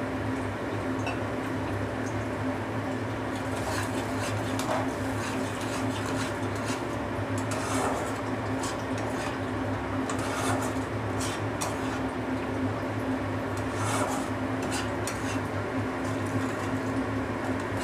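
Spatula scraping and stirring poppy-seed and green-chili paste frying in a kadai, in repeated rasping strokes against the pan, over a steady low hum.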